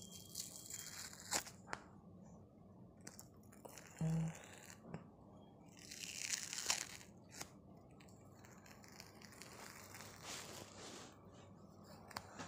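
An adhesive detox foot patch being peeled slowly off the sole of a foot: faint rustling and crinkling of the patch with small sticky tearing ticks, busiest about six seconds in, and a short low sound about four seconds in.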